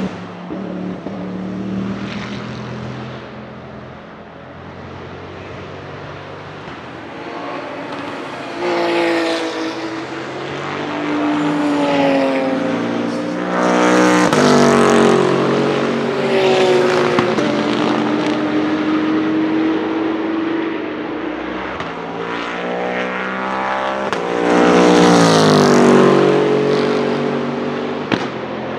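Bentley Continental GT3 race cars' twin-turbo V8 engines under hard acceleration as they pass by, the engine note rising and falling in pitch. The sound swells and fades with each pass, loudest about halfway through and again near the end.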